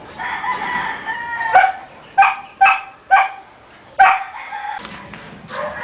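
A shepherd-type dog barking in a wire cage, about five sharp barks in the second half-plus, the last one drawn out a little longer. Before the barks a rooster crows once, a single call of about a second.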